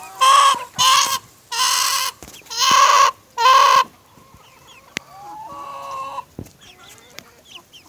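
Chickens squawking close by: five loud, short calls in the first four seconds, followed by quieter clucks and one softer drawn-out call.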